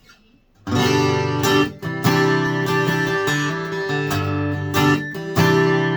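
Applause by Ovation AA14 deep-bowl acoustic guitar being strummed in chords. The playing starts a little under a second in, with the chord changing every second or so.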